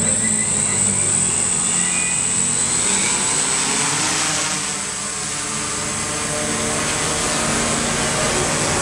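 SKYJIB six-rotor camera drone with its electric motors and propellers running: a steady high-pitched whine over a rushing propeller hum.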